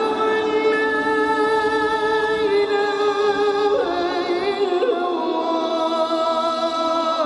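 Slow melodic music with a singing voice: long held notes that step from one pitch to another.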